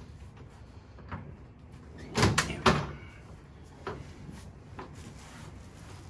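Thumps and knocks from a padded chiropractic adjusting table as a patient rolls from face-down onto his back: a couple of louder knocks about two seconds in, with lighter ones before and after.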